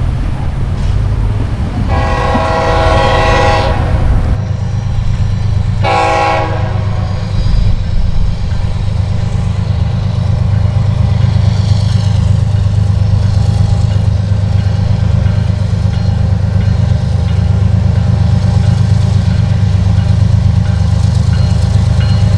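Diesel freight locomotive's horn sounding two blasts, a long one of about two seconds and then a short one, over the train's steady low rumble.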